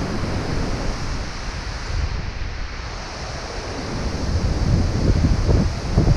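Wind buffeting the microphone of an action camera held by a jumper swinging on a bungee cord, a rushing noise with low, fluttering gusts. The gusts ease off a couple of seconds in and grow stronger again near the end.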